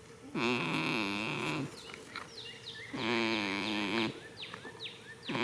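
A goat snoring in its sleep: two snores about two and a half seconds apart, each lasting about a second and wavering in pitch, with a third starting at the very end.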